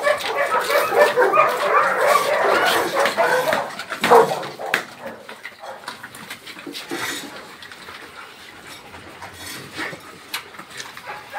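A pack of dogs barking and yelping all at once in a dense clamour for about four seconds. One loud bark comes about four seconds in, then it quietens to scattered yelps.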